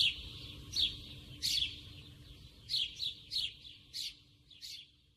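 Bird chirps, short and sharp, about one or two a second, over a low rumble of background ambience, growing fainter and sparser toward the end.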